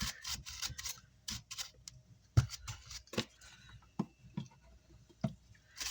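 Irregular small clicks and knocks of parts and tools being handled on a workbench, the sharpest about two and a half seconds in.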